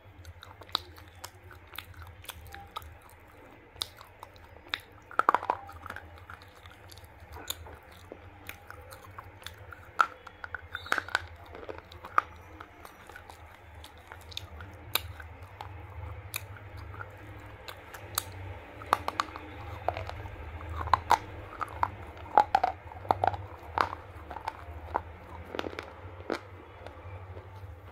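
Slate pencils being bitten and chewed close to the microphone: irregular sharp, dry crunches and cracks with chewing in between, coming in clusters.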